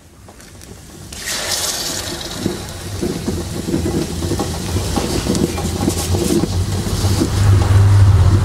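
Puréed tomatoes pouring from a glass bowl into a hot aluminium roasting pan of fried onions and peppers, sizzling and hissing as they land; it starts about a second in and builds steadily. A low rumble grows louder near the end.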